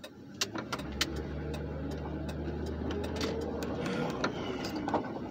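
Engine and road noise inside the cabin of a 2007 Crown Victoria Police Interceptor under way, its 4.6-litre V8 running on a road test after the cylinder 3 ignition coil was replaced. A steady low drone fades out about four seconds in, and light clicks and rattles sound here and there.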